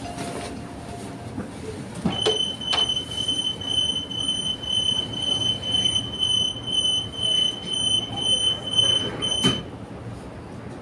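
Door-closing warning on a Transperth B-series electric train: a high steady tone starts about two seconds in and sounds for about seven seconds. There are sharp clicks as it begins and a knock as it stops, over the carriage's steady rumble.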